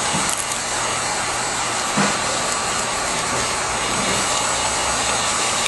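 Electric heat gun blowing hot air steadily over PVC shrink film.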